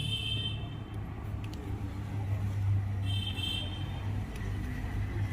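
Steady low rumble of background road traffic, with a brief high-pitched tone about three seconds in and a few faint clicks.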